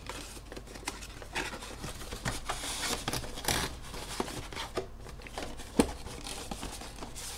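Cardboard Commander deck box being opened by hand: flaps and card stock rustling and scraping, with many small clicks and one louder click about six seconds in.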